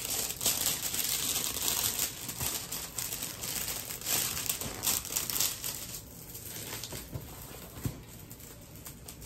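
Crinkling and rustling of the plastic packaging of a diamond painting kit as it is handled and opened, busiest for the first six seconds and then softer.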